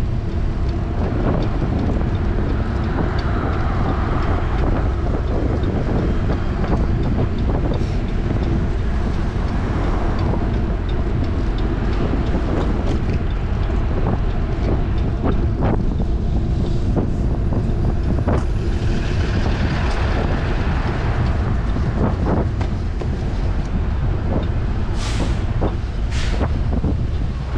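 Wind buffeting an action camera's microphone on a moving bicycle, a steady low rumble, with city traffic underneath and scattered small knocks and clicks.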